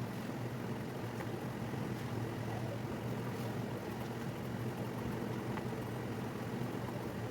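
A steady low hum of background noise, even and unchanging throughout, with a few faint light ticks above it.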